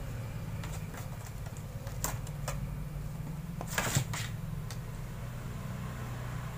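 Kittens scuffling against a cardboard box: scattered light taps and scratches of paws and claws on the cardboard, with a louder flurry about four seconds in. A steady low hum runs underneath.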